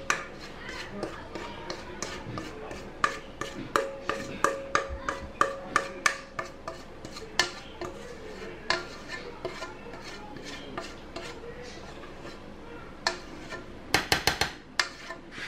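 A spoon scraping and knocking against a metal mixing bowl and a roasting pan while thick cornbread batter is scraped out and spread, a run of irregular clicks and taps with a quick flurry of knocks near the end.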